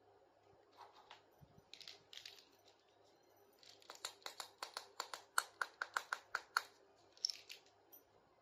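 Handling of small plastic toy kitchen pieces: a few soft rustles, then a quick run of small sharp clicks, about five a second, with a slight ring.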